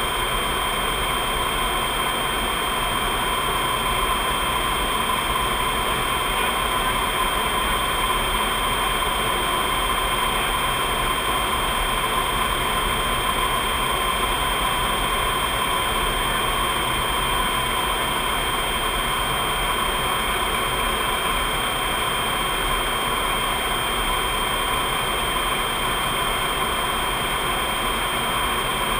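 Steady cockpit noise of a C-5 Galaxy in cruise flight: rushing airflow and jet engine noise with a steady high-pitched whine over it, unchanging throughout.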